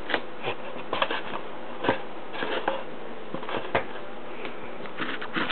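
Packaging and small plastic toy parts being handled: scattered light clicks and rustles, irregular, a few each second.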